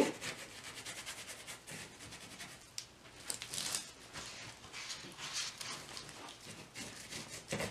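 Flat paintbrush dragging acrylic paint over a textured canvas board: quiet, scratchy brush strokes, with a few louder ones about three, five and seven seconds in.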